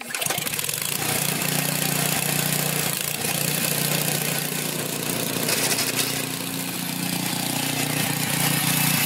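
Toro 826 snowblower's 8 hp Briggs & Stratton single-cylinder engine running steadily.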